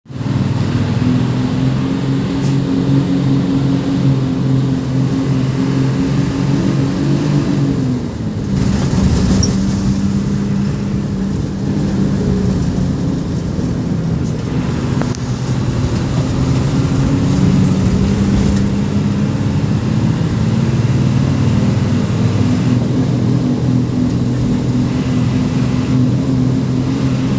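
A Hino 1J bus's diesel engine running under way, a steady low drone. About eight seconds in its pitch drops sharply, then climbs gradually again over the following seconds.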